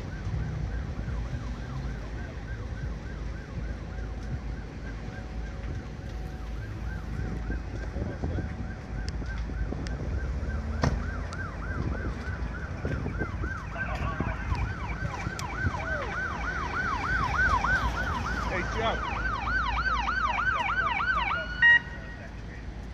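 Emergency vehicle sirens approaching in a fast rising-and-falling yelp, faint at first and growing louder. A second, higher siren joins past the midpoint. The sirens cut off near the end, followed by a short loud blast.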